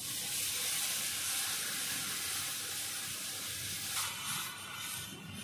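Hot rice starch water poured into a karahi of hot oil and browned onion, garlic and chilli, hissing and sizzling loudly the instant it hits. The hiss eases about four seconds in to a softer sizzle.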